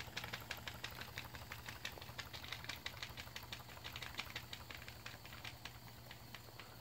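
Model Stuart Williamson Brothers vertical steam engine running smoothly on live steam: a fast, even ticking of about six beats a second that fades a little near the end, over a low steady hum.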